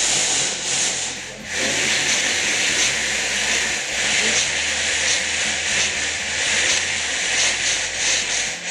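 Slinky rubbing and scraping along the surface it lies on as it is shaken sideways to send transverse pulses down it: a steady, hiss-like rubbing with a brief drop about a second and a half in.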